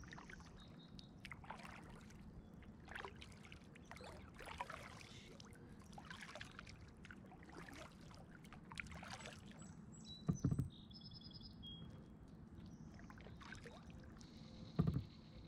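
Kayak paddle strokes: the paddle blades dip and drip softly, about once a second. There are two dull knocks later on.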